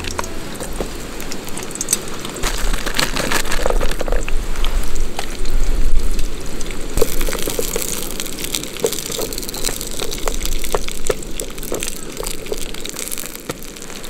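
Vegetables and garlic sizzling in the frying pan of a Trangia camping cook set, with tongs clicking and scraping against the pan. The sizzle turns louder and hissier about seven seconds in.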